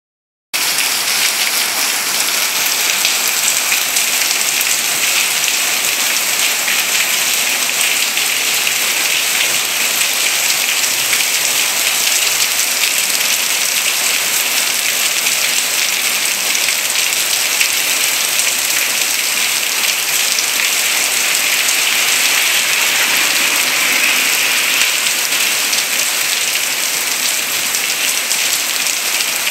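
Heavy rain pouring onto a street and pavement, a loud steady hiss that holds without let-up.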